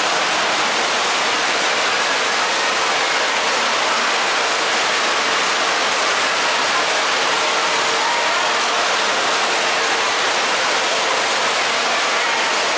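Steady rush of flowing and falling water in an indoor water park, an even hiss with no breaks.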